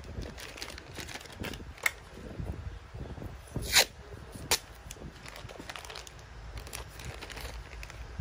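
Plastic bags crinkling and crackling as bagged eyeglasses are handled, in scattered short rustles with a sharp louder crackle about four seconds in and another just after.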